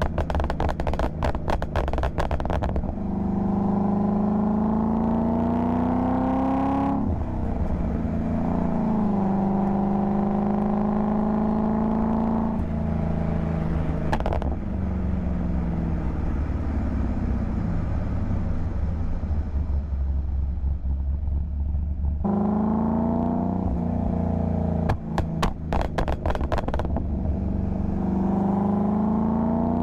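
LS V8 exhaust with a crackle-pop tune: a rapid string of pops and crackles as the throttle is lifted. The engine then pulls up through the gears, its pitch rising and dropping back at each upshift, and falls away as it coasts. It crackles again about 25 seconds in and pulls once more near the end.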